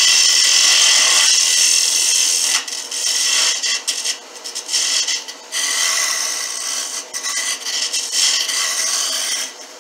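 Cherry spindle spinning on a wood lathe while a hand-held duplicator tool's cutter shaves it, a loud steady cutting hiss. From about two and a half seconds in, the cut breaks off and resumes several times.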